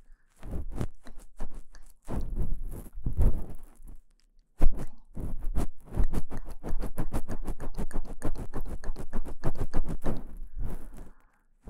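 Ear pick scraping inside the ear of a KU100 binaural dummy-head microphone. Slow, uneven strokes for the first few seconds, a brief pause, then quick scratching strokes at about seven a second.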